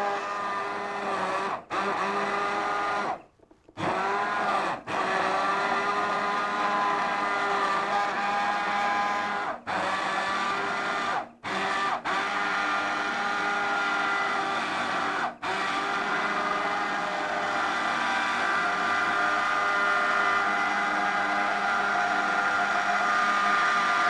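Hand-held immersion blender motor whirring steadily as it purées chunky pumpkin soup in a cast-iron pot, stopping for a moment several times and starting again, the longest pause about three seconds in.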